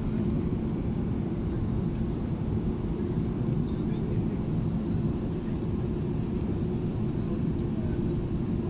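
Steady low rumble and hum inside the cabin of an Airbus A380-800 as it taxis, its engines at low power.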